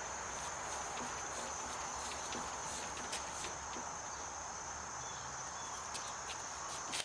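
Insects chirping in a steady, high-pitched trill, with a few faint clicks.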